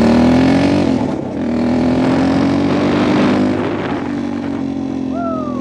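A vehicle engine revving up, dropping back about a second in, then running at a steady speed. Near the end there is a short, high falling squeal.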